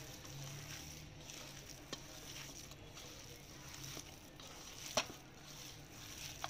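Hands kneading raw minced-meat kebab mixture in a steel bowl: faint, soft wet squishing and rustling, with a couple of light clicks, the sharpest about five seconds in.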